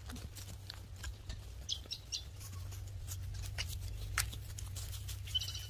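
A horse walking on dry, grassy ground: hooves knocking and tack clicking irregularly over a steady low rumble of wind and phone handling, with a few short high chirps.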